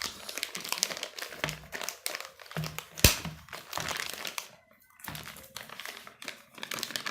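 Packaging being handled and unwrapped, crinkling irregularly, with one sharp snap about three seconds in.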